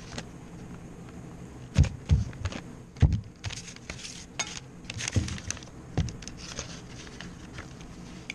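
A kitchen sponge being dipped and worked in a plastic tub of water by gloved hands, with a string of sharp knocks, splashes and handling noises, the loudest about two and three seconds in.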